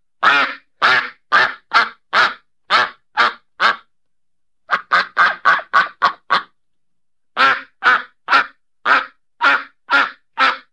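A duck quacking in three runs of short, loud quacks, each run lasting a few seconds with a pause of about a second between runs. The middle run is quicker, about four quacks a second, against about two to three a second in the others.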